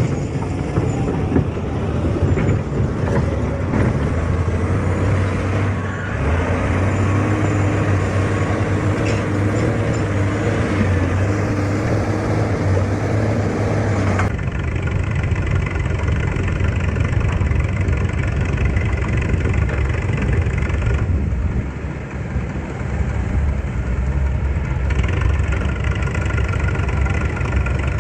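Excavator's diesel engine running steadily under load. The sound changes abruptly about halfway through, as at a cut, and the engine note shifts a little again later.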